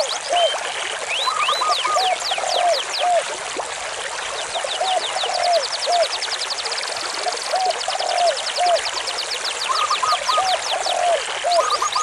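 Mountain river water flowing as a steady rushing hiss. Over it, a pattern of short chirping tones and quick high trills repeats every few seconds.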